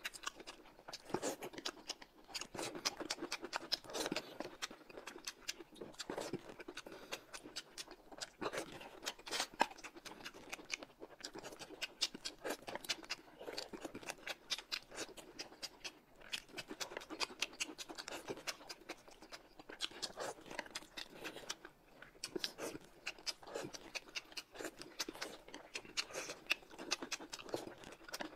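People chewing and eating food close to the microphone: a dense run of small, irregular mouth clicks.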